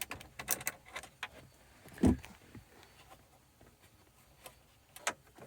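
Scattered light clicks and taps of a hand tool and plastic dash trim while 7mm screws are worked loose, with one duller knock about two seconds in.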